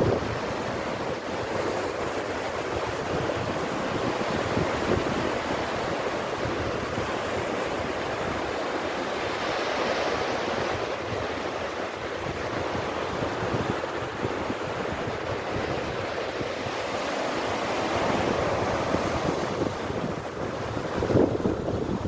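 Small sea waves breaking and washing up a sandy beach in a steady rush of surf that swells now and then. Wind buffets the microphone.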